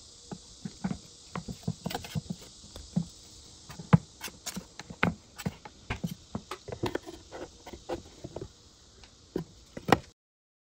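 Steel blade of a 5-in-1 painter's tool being worked into the joint between a nailed-on wooden shoe form and the box lid to pry it loose: irregular small clicks and taps of metal against old wood. The sound cuts off suddenly near the end.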